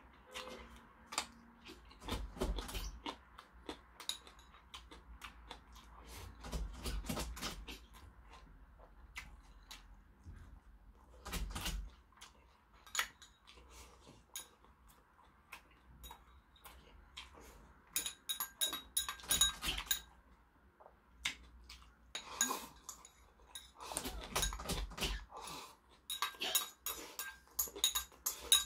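Metal chopsticks clicking and scraping against ceramic bowls in a string of light irregular clinks, denser in the second half, while someone eats with soft chewing sounds at intervals.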